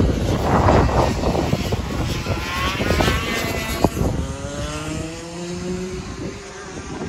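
Go-kart engines running on the track, their pitch rising and falling as the karts speed up and slow for the corners. The first half is dominated by a rushing noise with low rumble, and a single sharp click comes about halfway through.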